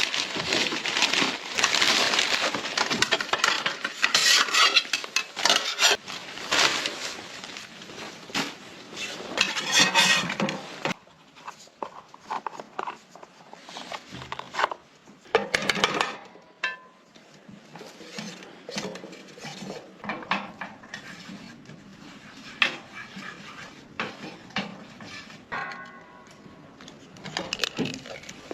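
Cookware and utensils being handled: a dense stretch of scraping and clattering for about the first eleven seconds, then quieter scattered clinks and knocks.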